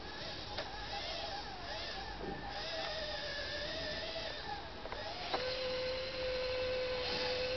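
Small electric drive motors and gearboxes of a radio-controlled model Cat D6 bulldozer whining as it crawls over loose dirt. The pitch wavers at first, then after a click about five seconds in it holds one steady tone.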